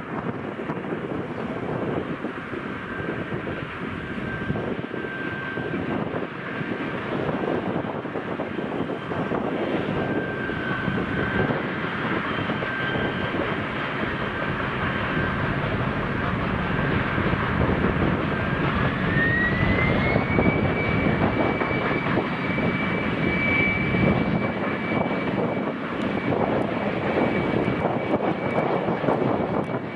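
Diesel locomotive engine running loud and steady under power, with a high whine that rises in pitch about two-thirds of the way through and then holds.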